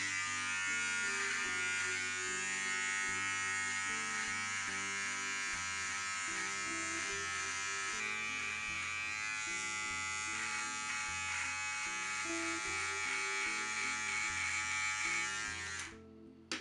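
Electric shaver buzzing steadily, switching on at the start and cutting off abruptly near the end, with background music underneath.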